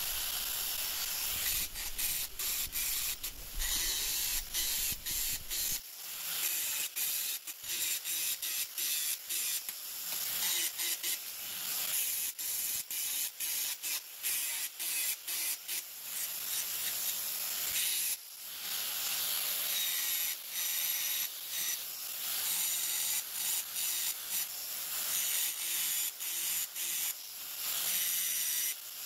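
Handheld angle grinder grinding the edges of steel horseshoe pieces, with many brief breaks in the sound. It is bevelling the joints so the welds can penetrate.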